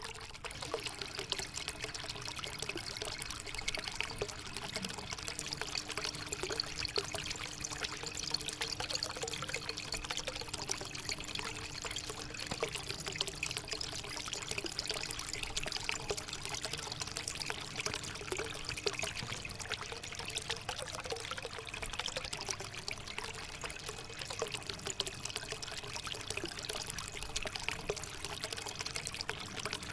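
Water from a small homemade cement fountain trickling and splashing steadily.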